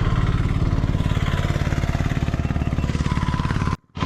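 Motorcycle engine running steadily at fairly low revs. The sound cuts out abruptly for a split second near the end.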